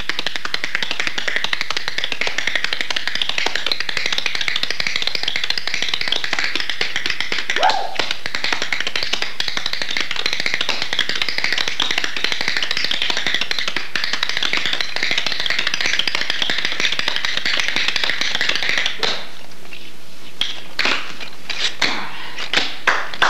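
Tap shoes with metal taps striking a hard floor in an improvised tap solo: a fast, unbroken stream of taps for most of the time, then a short pause and a few separate, louder strikes near the end.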